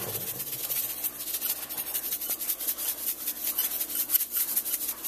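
Pepper mill grinding pepper: a steady run of fast, tiny clicks.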